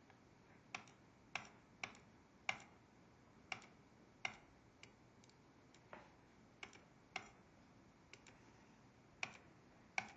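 About a dozen sharp, irregular clicks of computer controls, paging through images on a workstation, with a short pause near the end before two more clicks.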